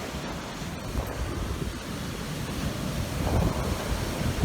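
Strong wind buffeting the microphone over the steady rush of waves breaking on the shore during a windstorm.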